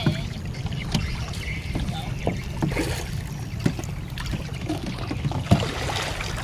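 Plastic baskets and basins knocking and clattering against each other and the wooden hull of a small boat as they are handled, with a few sharp knocks, the loudest about five seconds in. A steady low rumble runs underneath.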